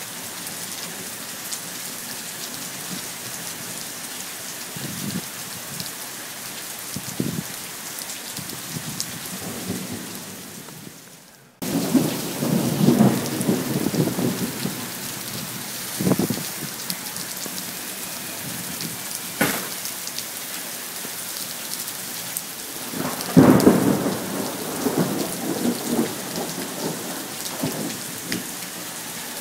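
Heavy rain falling steadily on pavement during a thunderstorm, with thunder rumbling twice: about twelve seconds in and again near the end. The rain noise fades out briefly just before the first rumble.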